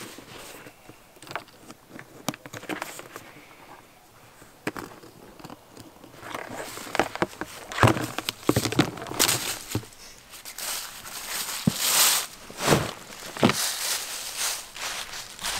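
Footsteps crunching and rustling through dry fallen leaves, irregular and louder from about six seconds in. Before that there are only faint scattered clicks and rustles.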